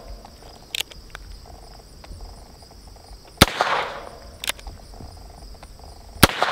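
Two shots from a Heritage Barkeep .22 rimfire single-action revolver, about three seconds apart, one about three and a half seconds in and one near the end, each ringing out briefly. Lighter clicks come about a second after a shot, as the hammer is cocked for the next one. Insects chirr steadily in the background.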